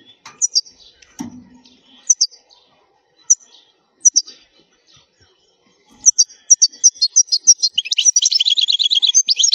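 European goldfinch singing: a few short high chirps scattered through the first few seconds, then from about six seconds in a fast, unbroken twittering song that runs into a rapid trill near the end.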